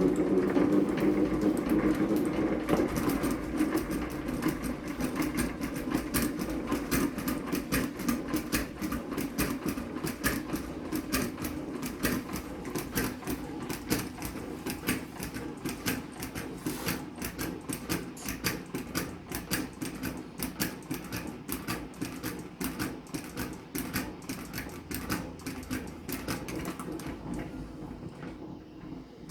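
Hand-cranked manual honey extractor spinning, its gearing clicking rapidly, the sound fading and stopping near the end.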